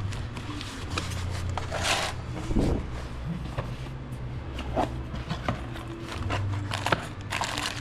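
Brake-kit parts and their packaging being handled: rustling and scraping with scattered light knocks and clicks, a louder rustle about two seconds in and another near the end, over a steady low hum.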